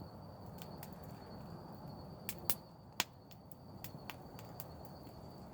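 Wood campfire crackling, with scattered sharp pops and two louder snaps about two and a half and three seconds in.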